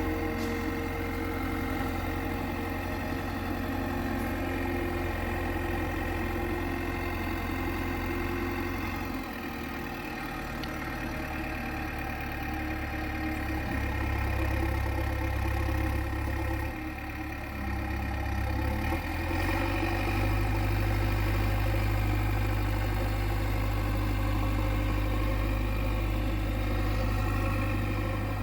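Heavy earth-moving machine's diesel engine running steadily, its note shifting a few times as the revs change.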